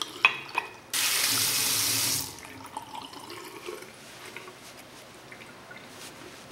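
A couple of sharp clinks, a glass tumbler knocked on the ceramic sink, then a bathroom tap runs into the sink for about a second and a half and shuts off, followed by faint handling sounds.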